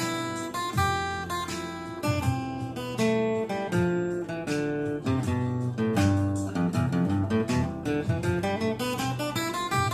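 Acoustic guitar being picked: a quick run of single notes and chords, several notes a second.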